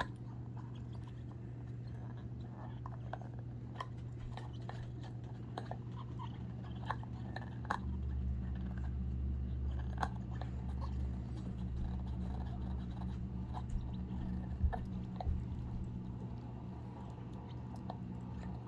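Pomchi dog chewing and gnawing a red rubber gorilla chew toy: irregular clicks and crunches of teeth working the rubber.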